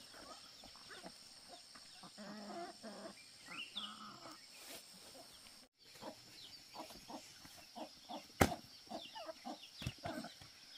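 Chickens clucking, with many short high chirps among the calls and a steady high-pitched whine underneath. A single sharp knock sounds about eight seconds in.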